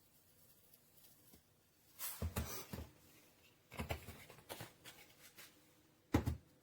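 Rattling and knocking from the electric spice grinder and its contents being handled while it is loaded with dried garlic, in three short bursts, the last one the loudest; the motor is not running.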